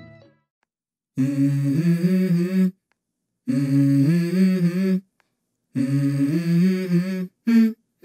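Unaccompanied voice humming a melody in three phrases with short silent gaps, stepping between a few notes, as the opening of a song in the soundtrack. It starts after about a second of silence and ends with a brief fourth note.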